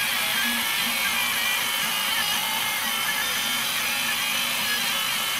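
RepRap 3D printer with a three-way colour-blending extruder running mid-print: a steady mechanical whir with faint whining tones from its stepper motors and fans.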